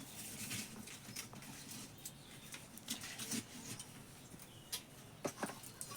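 Faint, scattered crackles and pops of oil frying pieces of young jackfruit in a pan.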